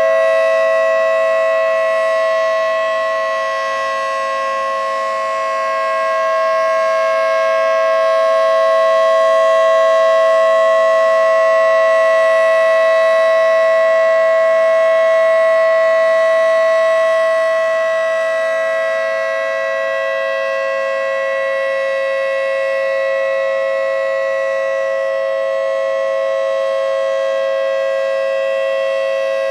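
Federal Signal 2T22B two-tone rotating mechanical siren sounding a steady full-alert chord of two close pitches. The level swells and fades slowly as the rotating head sweeps past.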